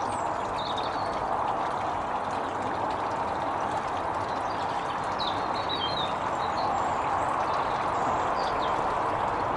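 Steady trickle and splash of water in a garden pond. Short high bird chirps come through a few times, briefly near the start, in a cluster in the middle and once near the end.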